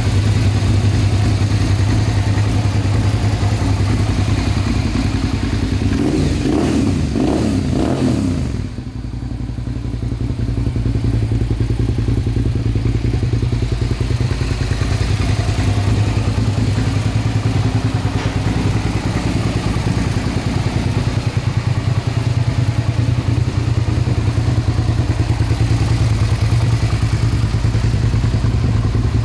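Suzuki SV650 90-degree V-twin idling steadily. The throttle is blipped a few times about six to eight seconds in, and the engine then settles back to idle.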